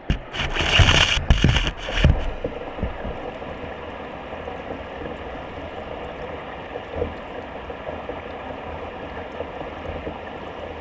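Water heard through a submerged camera: a loud burst of splashing and bubbling for about the first two seconds, then a steady muffled water noise with a faint steady tone.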